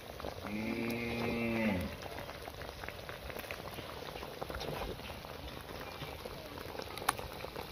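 A cow moos once, about a second and a half long, near the start. Under it, liquid simmers and bubbles in a wok with faint crackles, and there is one sharp click near the end.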